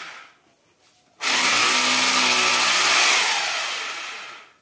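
Corded electric drill boring into a wall: it winds down at the start, then after a short pause starts abruptly about a second in, runs steadily for about two seconds and winds down again near the end.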